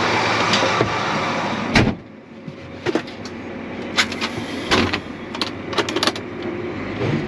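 Steady loud rushing of a running grain dryer, cut off about two seconds in by a door shutting. Then quieter background with a series of light clicks and knocks.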